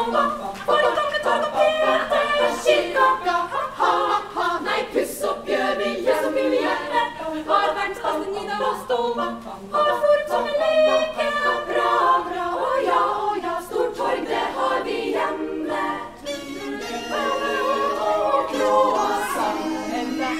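Women's choir singing a cappella, several voice parts together.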